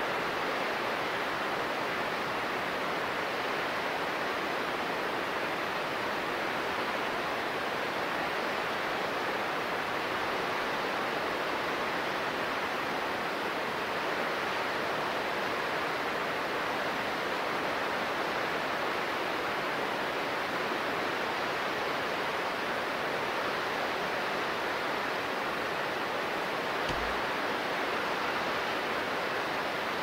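Steady, even rush of the Ryusei and Ginga waterfalls, water falling down cliff faces and cascading over rocks.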